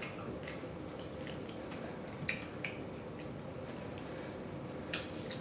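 Mouth chewing pizza close to the microphone: scattered short, wet smacking clicks, a pair of sharper ones a little past the middle and another near the end.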